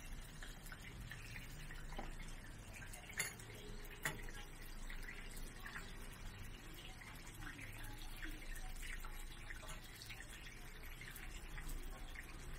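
Scallion pancakes frying in oil on a large flat pan, a steady crackling sizzle, with two sharp clicks about three and four seconds in.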